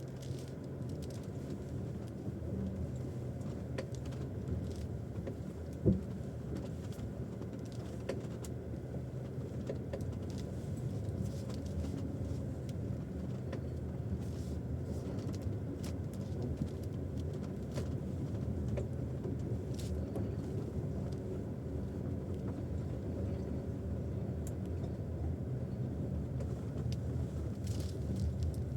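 Cabin noise of a GAC GS8 II driving over uneven road: a steady road rumble with scattered light clicks and knocks, and one loud sharp knock about six seconds in. The knocks come from under the steering wheel, clear and ringing, as the car's weight rocks side to side over bumps; their cause is unknown.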